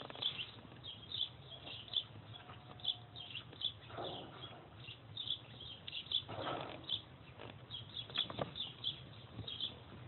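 Car brake pedal assembly worked by hand, its pedal arm and pivot giving irregular light clicks and ticks, with a few louder knocks about four, six and a half and eight and a half seconds in.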